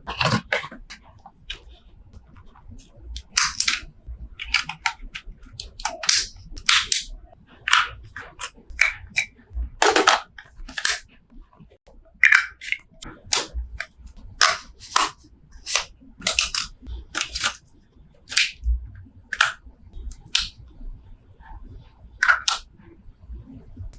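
Irregular sharp clicks, snaps and short rustles of a camera box and its packaging being handled and opened, a few of the snaps louder and heavier than the rest.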